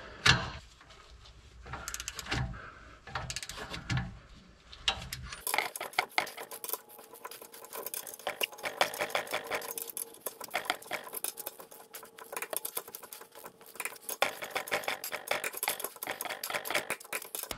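Socket wrench ratcheting on the 5/8-inch U-bolt nuts of a leaf-spring axle: runs of quick metallic clicks with small clinks of metal on metal, faster and more even from about five seconds in.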